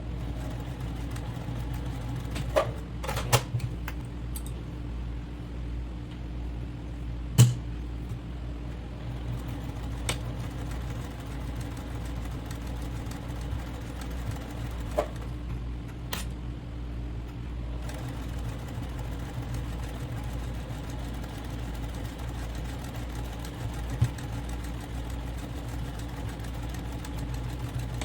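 Electric sewing machine running steadily as it stitches a seam, with a few short sharp clicks; the loudest click comes about seven seconds in.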